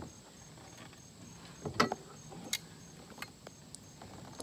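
A few sharp knocks and clicks of gear being handled aboard a kayak, the loudest about two seconds in. Behind them, a faint steady pulsing of crickets.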